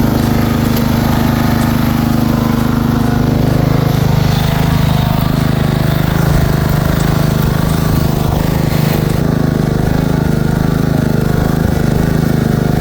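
Lawn mower engine running steadily at working speed, its note shifting lower about four to five seconds in.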